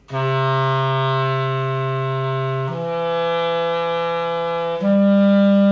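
Clarinet playing three long notes slurred together legato, each held about two seconds and each a step higher than the last, with no break or tongued attack between them.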